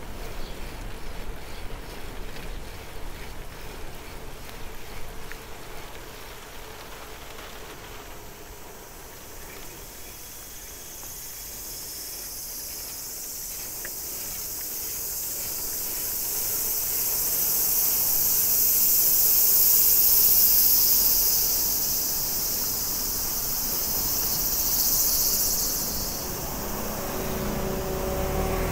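Cicadas singing in a loud, steady high-pitched chorus that swells in about a third of the way through, peaks in the middle and fades near the end.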